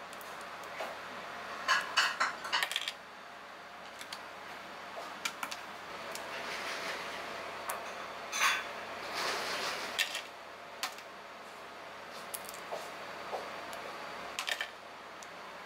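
Small crustacean shells being cracked and peeled apart by hand: crisp clicks and crackles in a few short clusters, with light taps of pieces dropping into a bowl.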